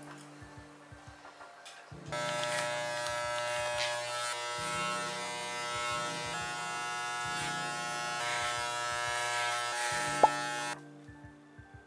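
A small electric motor buzzing steadily. It starts about two seconds in, runs for roughly nine seconds and cuts off suddenly near the end, with a sharp click just before it stops. Faint background music underneath.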